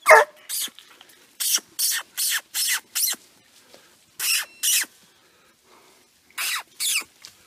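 Short, noisy breaths close to the microphone, coming in quick pairs and runs with pauses between, with a brief high squeal right at the start.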